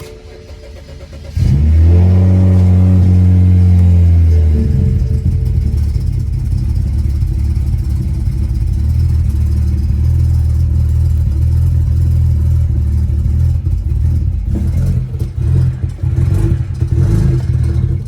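BMW 335i's N54 twin-turbo inline-six cold start: it cranks and catches about a second and a half in, flares to a high idle for about three seconds, then drops to a lower idle that wavers unevenly near the end. The owner says it misfires badly on a cold start but runs fine once warm, and was told the high-pressure fuel pump is to blame.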